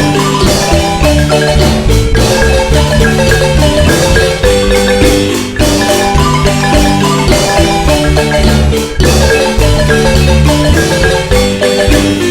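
Marimba band music: fast, struck wooden-bar melody over a steady bass line.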